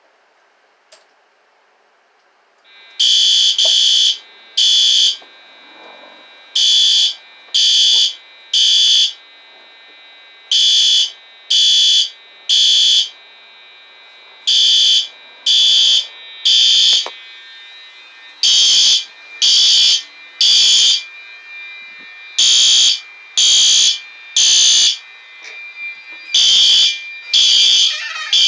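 Smoke alarm sounding during a test: loud, high-pitched beeps in groups of three, about a second apart, with a longer pause between groups (the standard three-beep fire-evacuation pattern), starting about three seconds in.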